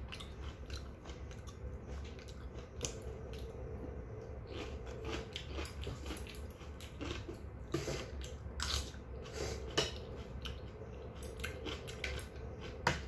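A person chewing and crunching kimchi, with a few sharp clicks of metal chopsticks against a steel bowl, over a steady low hum.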